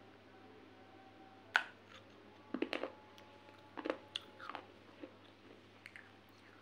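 Thin baked terracotta clay bitten and crunched between the teeth: a sharp snap about one and a half seconds in, then a run of short crunches in the middle and one more near the end.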